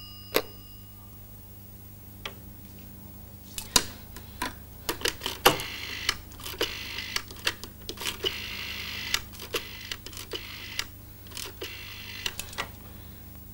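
Rotary-dial desk telephone being dialled: a run of clicks and the whirr of the dial running back after each digit, starting about four seconds in and lasting some eight seconds. A single click comes just before.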